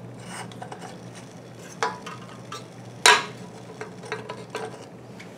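Metal tongs handling a hot aluminium soda can on a hot plate: light clicks and scrapes of metal on metal, with one sharp clank about three seconds in.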